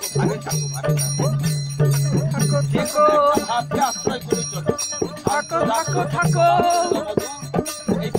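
Baul devotional music: small brass hand cymbals (mandira) strike a steady beat under a recurring low tone, and a voice sings wavering phrases a few seconds in and again near the end.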